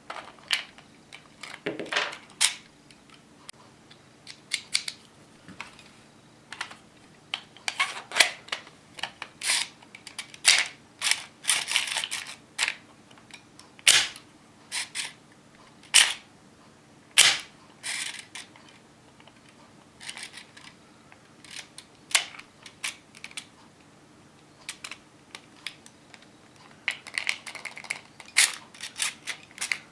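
3D-printed Hino-Komuro model pistol being handled and worked by hand: an irregular string of sharp plastic clicks and snaps from its mechanism, the loudest few near the middle.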